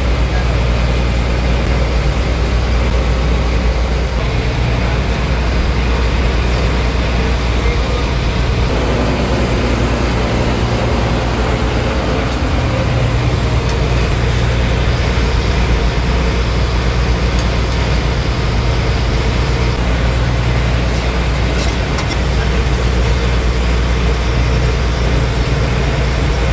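Fishing boat's engine running steadily under way, a constant low drone, with a few faint clicks of a ladle against a pot.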